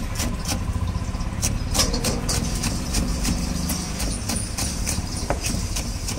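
Knife chopping green chillies on a plastic cutting board: quick sharp knocks, about three a second, over a steady low rumble.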